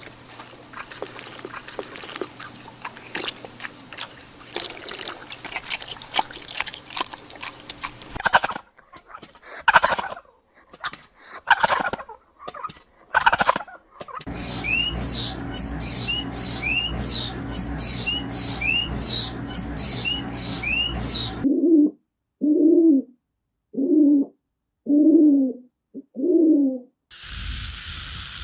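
A run of different farm animal and bird calls joined by hard cuts: a crackly, clicky stretch, then four loud calls, then about a dozen short rising chirps over a steady hiss, then five short low calls evenly spaced.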